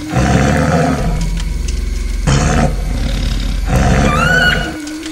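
Tiger roars laid over the picture as a sound effect: three roars, the last and longest near the end, over a steady low drone. A brief rising whistle-like call sounds during the last roar.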